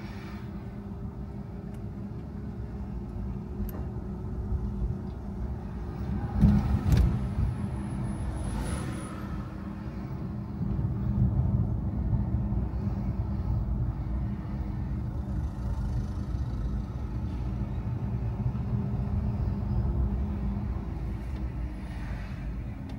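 Car driving: a steady low engine and road rumble with a faint hum that drifts slowly in pitch, and a single thump about six and a half seconds in.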